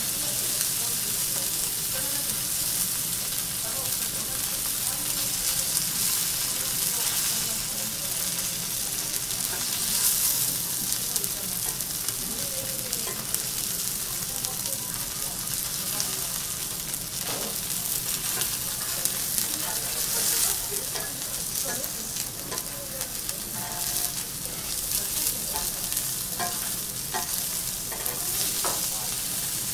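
Kobe beef steaks sizzling steadily in their fat on a hot teppanyaki steel griddle. In the second half there are a few short clicks and scrapes as the chef's utensils work the meat on the plate.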